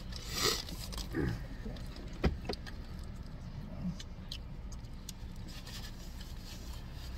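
Steady low hum inside a parked car's cabin, with quiet eating and handling noises: a bite into a chicken nugget about half a second in, and a sharp click a little after two seconds.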